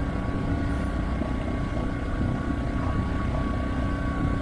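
A motor running steadily, a hum with a steady high whine and no change in speed.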